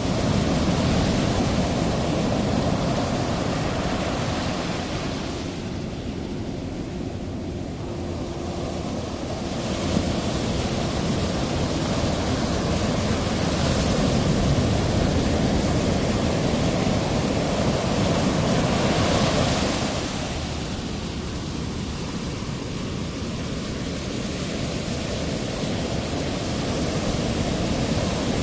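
Ocean surf: a steady rush of breaking waves that swells and eases over spans of several seconds.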